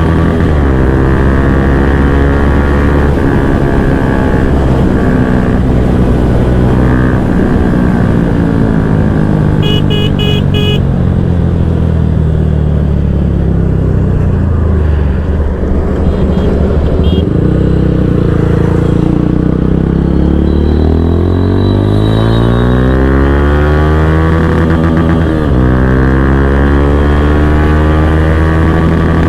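Bajaj Pulsar N160's single-cylinder engine through a full-system aftermarket exhaust, ridden hard: a loud, steady engine note that drops as the bike slows about two-thirds of the way through, then climbs again as it accelerates.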